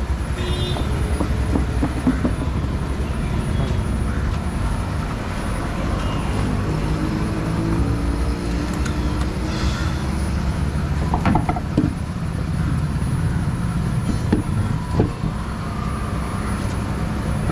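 Steady low mechanical rumble with scattered metallic clanks and taps from tyre-fitting work, a few of them sharper about two-thirds of the way through.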